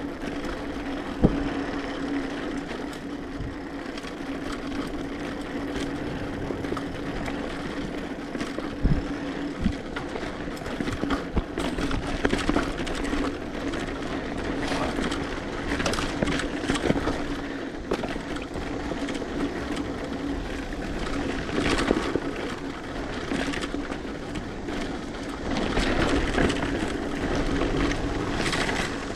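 Mountain bike riding over a dirt trail: tyre and drivetrain rattle over rough ground under a steady mechanical hum, with sharp knocks from bumps about a second in and near nine seconds.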